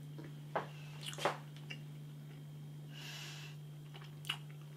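A person chewing a mouthful of beef cheeseburger: a few soft, separate wet clicks and smacks, with a short soft hiss about three seconds in. A steady low hum runs underneath.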